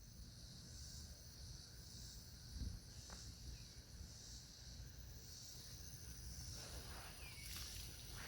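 Faint, steady high-pitched insect chorus, growing fuller about five seconds in, with a few short bird chirps near the end. A single low thump comes a little before three seconds.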